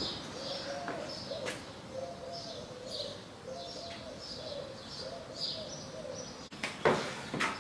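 Small birds chirping high and a dove cooing low about twice a second, with a few sharp clicks near the end.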